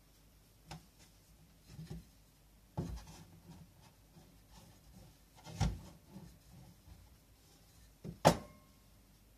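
Bread dough being stretched out on a wooden cutting board: a few soft knocks and rubbing against the board, the sharpest knock about a second before the end, with a brief ring.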